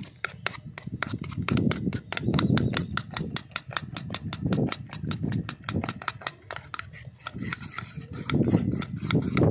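A metal utensil clicking and scraping against a bowl in quick, even strokes, about five a second, as aloe vera pulp and other ingredients are mashed into a wet paste.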